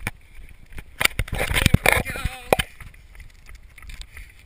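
Handling noise on a wearable action camera as it is turned around: a quick cluster of knocks and scrapes about a second in, then a few lighter thuds.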